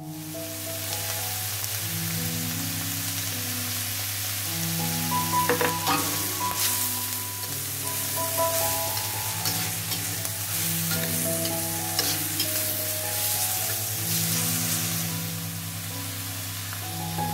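Chopped mustard greens sizzling as they are stir-fried in a stainless steel wok, with a metal spatula scraping and clicking against the pan, the clicks thickest about a third of the way in.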